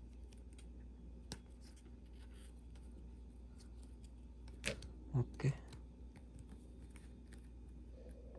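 Faint handling sounds of Pokémon card booster packs being opened and sorted: scattered small clicks and rustles, with a sharper click about a second in.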